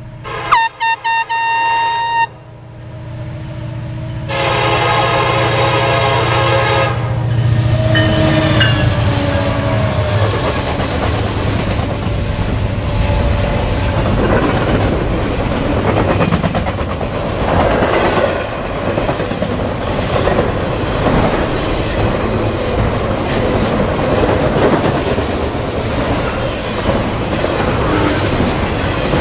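A handheld air horn sounds several short blasts, then the Norfolk Southern EMD SD70M-2's Nathan K5LLA five-chime horn blows for about three seconds, its chord dropping in pitch as the locomotive passes. A double-stack intermodal train then rolls by, with steady wheel-on-rail noise and clickety-clack over the rail joints.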